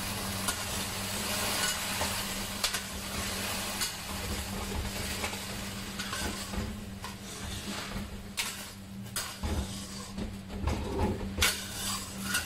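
Creamy carbonara sauce with sliced sausage sizzling in a nonstick wok while a metal spatula stirs and scrapes through it. The sizzle hiss thins out in the second half as the scrapes and clicks of the spatula come more often.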